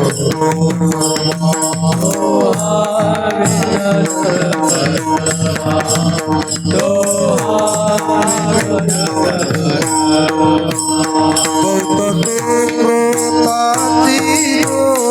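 Marathi devotional bhajan music: a melody with gliding, held notes over a steady hand-drum beat.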